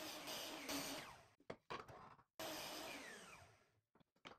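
Ace 10-inch compound miter saw with a carbide-tipped blade, its motor winding down after cuts through wood: a quiet falling whine, heard twice, with near silence and a few clicks between.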